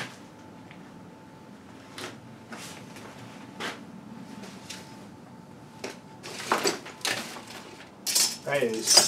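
Tools and small metal items being picked up and moved about on a cluttered workbench while someone hunts for a mislaid knife blade: scattered light knocks and clinks, then louder rattling and scraping in the last few seconds.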